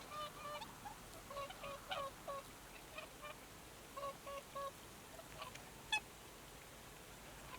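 Snow geese calling: short pitched honks in quick runs of three or four, repeated several times, with one sharper, higher call about six seconds in.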